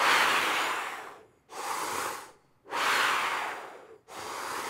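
A man breathing deeply and audibly through the mouth as a brass player's breathing exercise: two full breaths, each a loud rush of air that fades, followed by a softer one.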